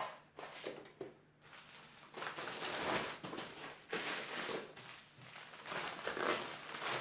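Parcel packaging crinkling and rustling as it is handled and opened, in short uneven bursts that pick up about two seconds in.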